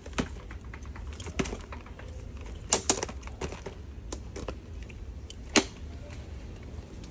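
Irregular light clicks and knocks of handling, the sharpest a few seconds in and one about five and a half seconds in, over a steady low hum in a supermarket aisle.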